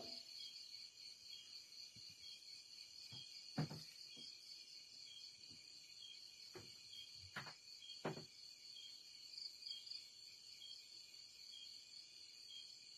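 Steady night chorus of crickets and other insects, a high hiss with a small chirp repeating about once a second. A few sharp snaps stand out over it, the loudest about a third of the way in and two more a few seconds later.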